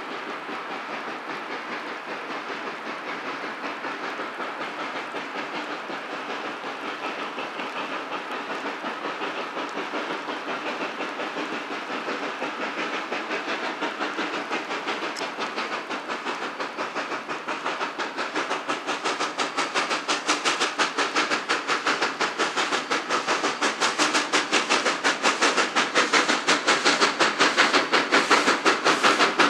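Steam locomotive approaching on the rails, its exhaust chuffing in a fast, steady beat that grows steadily louder as it comes closer.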